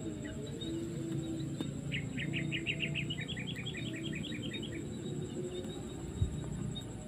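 A bird sings a rapid trill of short repeated notes lasting about three seconds, starting about two seconds in, over low sustained tones and a steady high whine.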